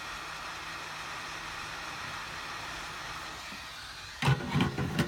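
Hot-air gun blowing with a steady hiss, heating the phone's panel to soften the adhesive so the part can be pried out. Near the end, a brief cluster of much louder sounds cuts in.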